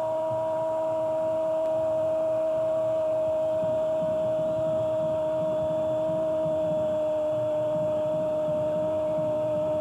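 A steady, unwavering pitched hum with a few overtones, held at one pitch throughout, over a faint low background rumble.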